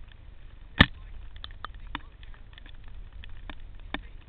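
Mountain bike rattling and clattering over a rough dirt trail: irregular clicks and knocks, with one sharp, loud knock about a second in, over a low steady rumble.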